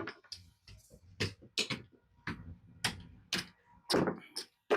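Casino chips clicking as they are handled and stacked: a dozen or so sharp clicks at uneven spacing, some in quick pairs.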